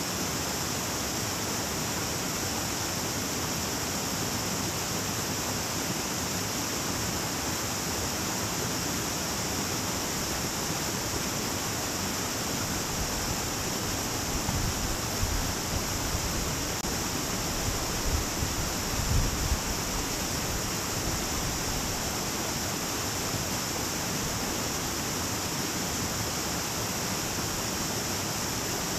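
Small stream running over rocks: a steady rushing hiss of water. A few low rumbles come and go about halfway through.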